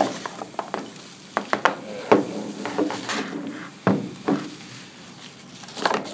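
Handling noises from unpacking a small electric motor: clear plastic packing wrap rustling and crinkling as it is pulled off, with scattered knocks as the motor and its box are set down on a table, the loudest about two and four seconds in.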